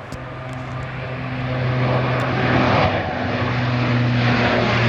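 De Havilland Canada DHC-8 (Dash 8) twin-turboprop airliner climbing out just after takeoff: a steady low propeller drone with a rushing engine hiss, growing steadily louder.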